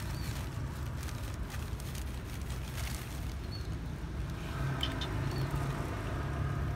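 Cats crunching dry kibble on a tiled floor, faint scattered clicks over a steady low rumble.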